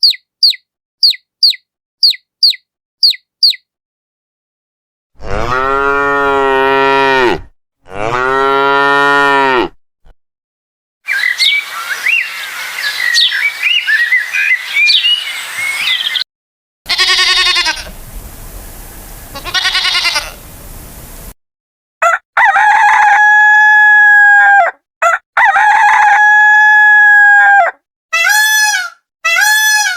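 A run of separate farm-animal calls with short gaps between them: seven quick high chirps at the start, then a cow mooing twice in long low calls, then chickens clucking and crowing, followed by further long pitched calls and short repeated calls near the end.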